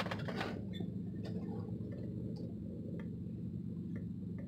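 Car turn signal ticking inside the cabin over the low hum of the idling engine, as the car waits to pull out of a parking lot.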